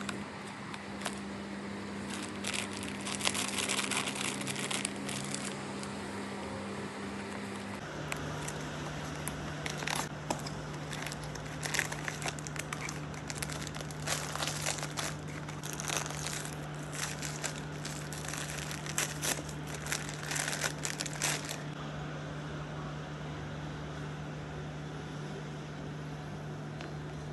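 Packaging crinkling and rustling in irregular bursts as a toy is unboxed, over a steady low hum; the crinkling stops about 22 seconds in.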